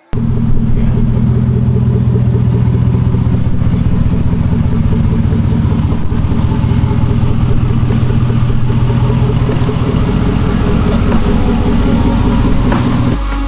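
Car engine running loud and steady at one pitch, cutting off abruptly near the end.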